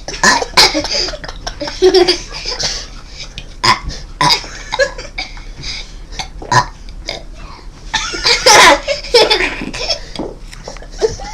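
A five-year-old child burping over and over, a string of short burps with a longer, louder one about two-thirds of the way through.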